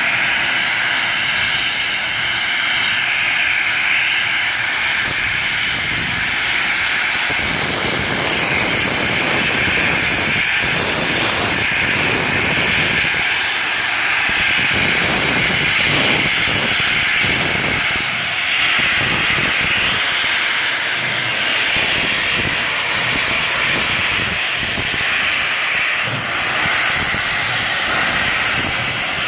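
Steady loud hiss of steam blowing from the open cylinder drain cocks of NSW 36 class steam locomotive 3642, clearing water from the cylinders as it gets under way. An uneven low rumble joins in about seven seconds in.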